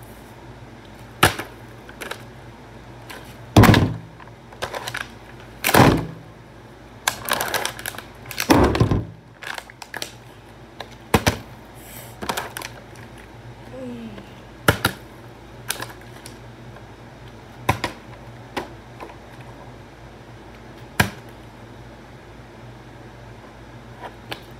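Plastic water bottle tossed again and again in bottle flips, knocking and clattering onto a tile floor: irregular sharp hits, about a dozen, the loudest around four, six and eight to nine seconds in.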